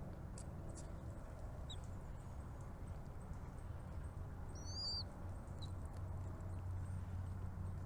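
A small bird gives a short pair of quick, high sliding chirps a little past the middle, with a couple of faint single chirps before and after, over a steady low rumble.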